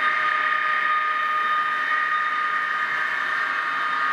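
HO-scale model train running on the layout, its small electric motor giving a steady whine that holds one pitch.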